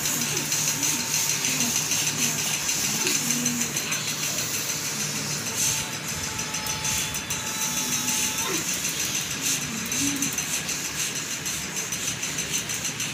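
Short wordless human cries and moans coming and going over a steady whirring, rattling background noise.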